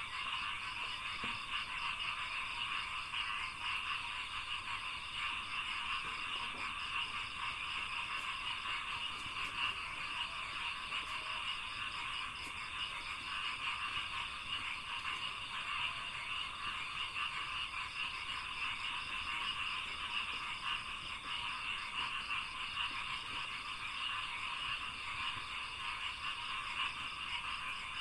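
A dense chorus of frogs in a rice paddy, many animals calling at once in a continuous, rapid pulsing croak, with a thin steady high-pitched band above it.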